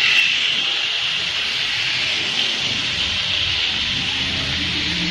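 Steady hiss of rain and tyres on a wet street, with a motor vehicle's engine growing louder in the second half.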